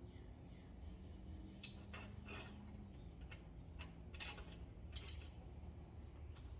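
Light metallic clicks and clinks of a headset installation tool and headset cups being handled and fitted on a bike frame: a scattered handful, the loudest a ringing clink about five seconds in.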